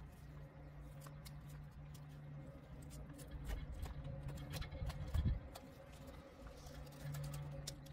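Knife and gloved hand working the hanging carcass of a masked palm civet during gutting: many small scattered clicks and wet snicks of cutting and pulling tissue, with a dull low thump a little past five seconds. A steady low hum runs underneath.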